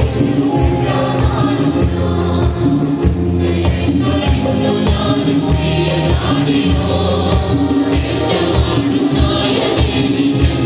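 Large congregation singing a Christian worship song together with a live orchestra, a tambourine keeping the beat.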